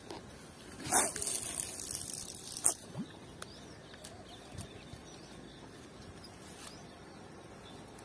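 A cast with a spinning rod: a brief swish and line hissing off the reel for about a second and a half, ending in a sharp click. After it come a few faint clicks as the reel is wound.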